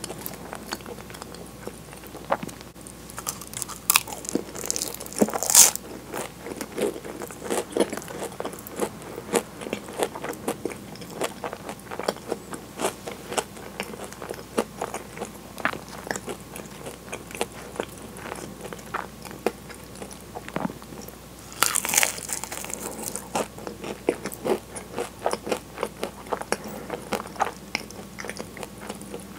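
Close-miked eating of Portuguese-style egg tarts: flaky puff pastry crunching and crackling under bites, with chewing in between. Two louder crunching bursts come about five seconds in and about twenty-two seconds in.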